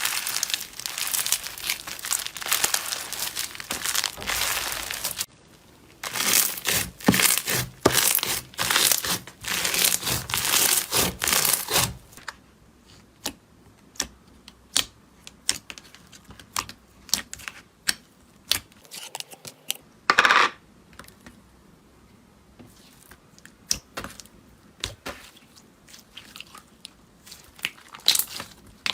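Slime being handled by hand, making dense crackling and crinkling for about five seconds, then again for about six seconds after a short pause. After that come scattered sharp pops and clicks.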